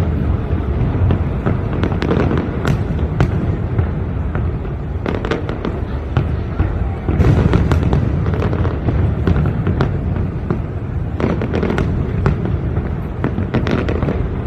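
Fireworks going off: a continuous low booming rumble with many sharp cracks, coming in dense volleys about a third of the way in, around the middle, and again near three-quarters.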